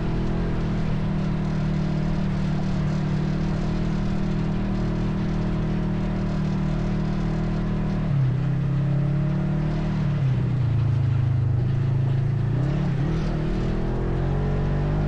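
ATV engine running while riding, steady for about eight seconds, then dropping in pitch as the throttle eases off, dipping lowest a couple of seconds later and rising again near the end.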